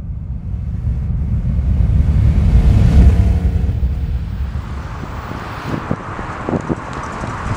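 A deep rumbling whoosh swells to a peak about three seconds in and then dies away. About five and a half seconds in, outdoor wind noise on the microphone takes over, with occasional sharp clicks.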